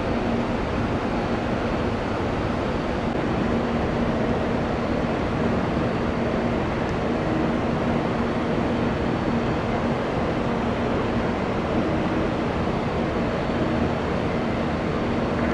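Jet airliner engines running, a steady rumble with a low hum.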